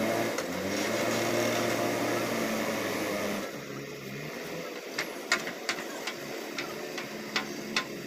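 JCB backhoe loader's diesel engine running under load, then easing off to a quieter run about three and a half seconds in. In the second half come a string of sharp knocks, about seven over three seconds.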